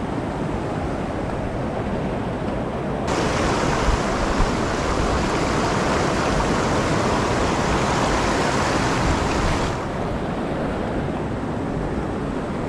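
Rushing water of a rocky mountain river, a steady hiss that grows louder and brighter from about three seconds in until near ten seconds, then drops back.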